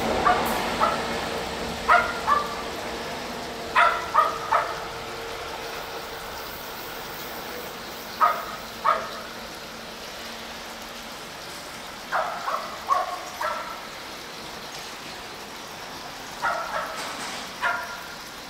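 An animal calls in short, sharp bursts of two to four every few seconds. Under the first calls, a passing EF64 electric locomotive is heard fading away over the first few seconds.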